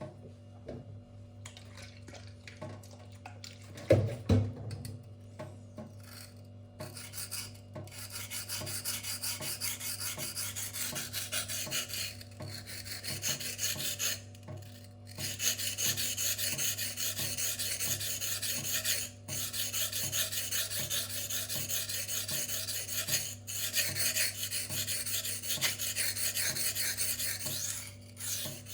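K110 steel knife blade being stroked freehand over a silicon carbide whetstone: rapid, even rasping strokes with a few short pauses, raising a burr along the edge. A single sharp knock comes about four seconds in, before the strokes start.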